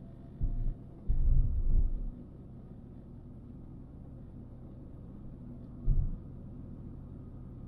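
Steady low rumble of a car driving on an open road, heard from inside the car. Short, loud, very low thuds break in about half a second in, again for most of a second just after the first second, and once more near six seconds.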